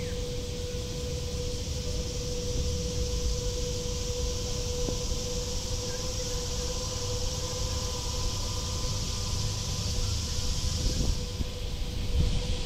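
Outdoor ambience beside a road: a low rumble of traffic under a steady high-pitched hiss that cuts off suddenly near the end, with a faint steady hum throughout.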